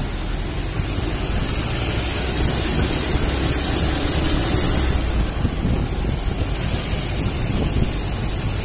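A VW tour car on the move: steady engine and road rumble, with wind blowing across the microphone.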